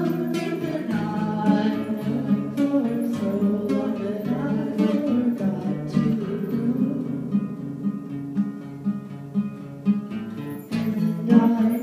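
Acoustic guitar strummed in steady chord strokes, dropping softer about eight seconds in and picking up louder again near the end.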